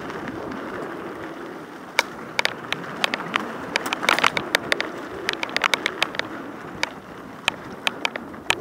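Mountain bike riding over a dirt forest trail: a steady rolling noise, with frequent sharp clicks and rattles from about two seconds in as the bike goes over the rough ground.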